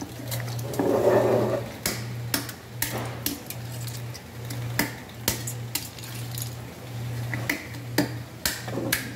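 A small hammer cracking turban-shell (sora) shells on a stone slab: irregular sharp knocks and clinks of breaking shell, several a second at times. A steady low hum runs underneath.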